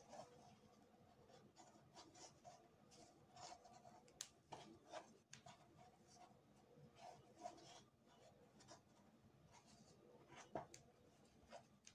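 Faint scratchy rustling of jute twine drawn through with a crochet hook while single crochet stitches are worked over a thick jute rope. It comes in short, irregular strokes, with a couple of sharper clicks.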